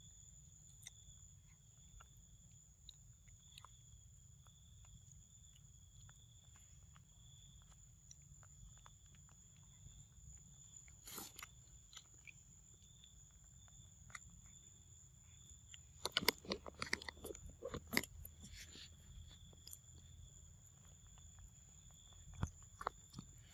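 Macaques chewing and biting into mango fruit: faint, scattered crunching and smacking, with a louder run of bites about two-thirds of the way through. A steady high-pitched whine runs underneath.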